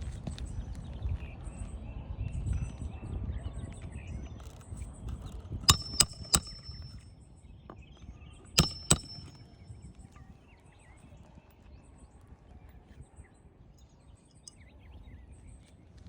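Hammer driving roofing nails into an asphalt shingle: three sharp metallic strikes in quick succession, then two more a few seconds later, each with a brief ring. Faint bird chirps in the background.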